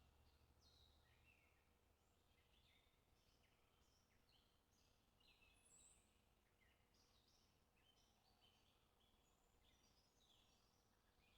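Near silence, with faint birds chirping throughout: many short, quick chirps.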